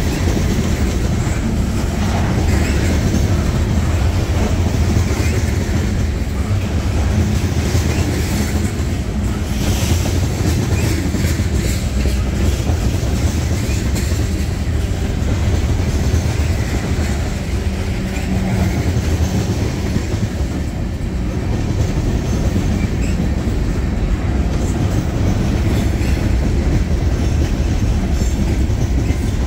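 Freight train of tank cars and covered hoppers rolling past close by: a steady, loud rumble of steel wheels on the rails, with repeated clicks.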